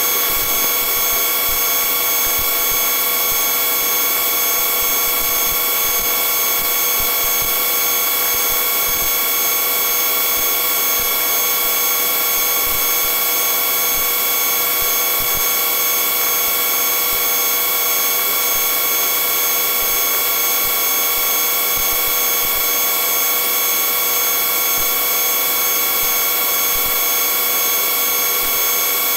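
Police helicopter's turbine engine and transmission noise: a steady drone with several constant high whining tones.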